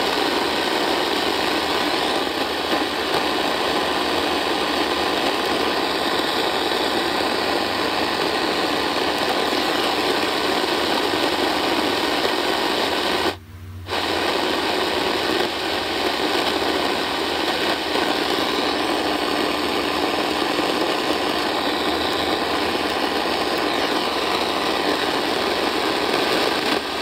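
AM radio receiver hissing with static on a frequency carrying no audible programme. The noise stays steady and cuts out briefly about halfway through.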